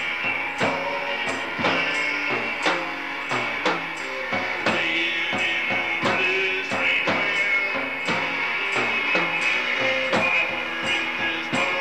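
Live band playing instrumental music: a drum kit keeps a steady beat of about two hits a second under a hollow-body electric guitar.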